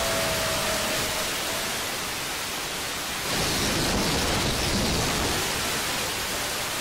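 Steady hiss of static on the audio track of an analog 5.8 GHz FPV video recording, with a thin steady tone that drifts slightly lower and fades in the first second or two. The hiss swells louder about three seconds in.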